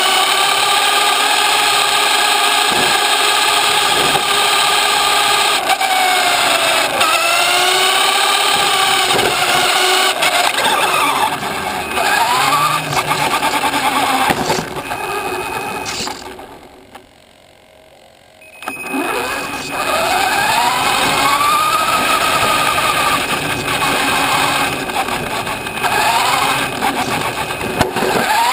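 Radio-controlled buggy's motor and drivetrain whining, rising and falling in pitch as it speeds up and slows, over constant tyre-on-road noise. About two-thirds of the way through the motor stops and it goes quiet for a couple of seconds before picking up again.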